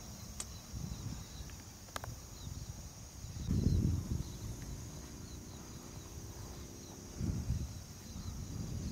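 Steady high chirring of insects in an open grassy field, with two brief low rumbles, about four seconds in and about seven seconds in.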